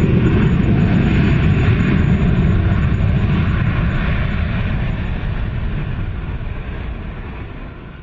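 Airplane passing and moving away: a deep engine rumble with a thin high whine above it, fading slowly and then more quickly near the end.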